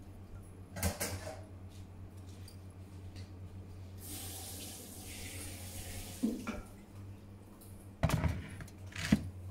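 Water pouring into a Thermomix's stainless steel mixing bowl in a hiss of about two seconds in the middle, between knocks and clatters of handling the bowl, the loudest two near the end.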